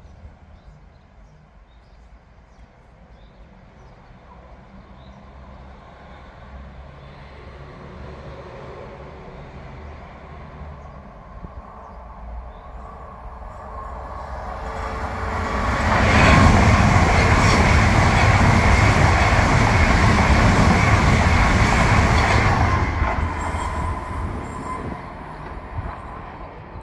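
ICE high-speed train running through a station at speed without stopping: a rush of wheels and air that builds slowly as it approaches, is loud for about seven seconds as it passes, then fades away.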